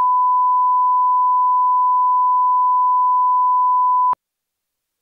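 Steady 1 kHz line-up test tone, the reference tone that plays with colour bars, cutting off abruptly about four seconds in.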